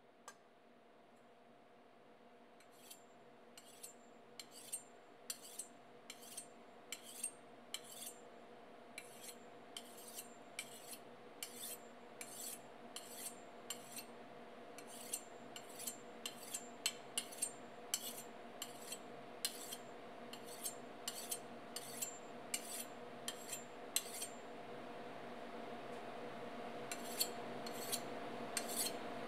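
A kitchen knife drawn along a honing steel in quick, even strokes, about two a second, each a short metallic scrape. The strokes begin a few seconds in, pause briefly near the end, then resume, over a faint steady hum.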